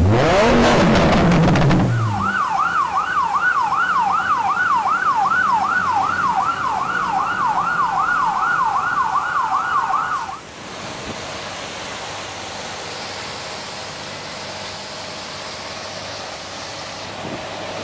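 Fire engine siren sounding a fast up-and-down wail, about three cycles a second, for about eight seconds. Just before it a supercar engine revs briefly, and after it the siren cuts off and a quieter steady rushing noise follows.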